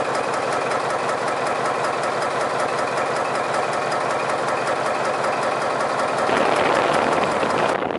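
Old multi-cylinder marine diesel engine running in the ferry's engine room, a steady rapid mechanical clatter. It grows louder about six seconds in.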